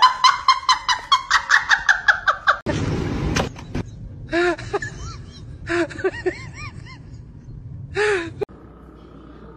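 A woman's high-pitched laughter in quick pulses, about seven a second. Then, after a second of rushing noise, a few short calls that rise and fall in pitch.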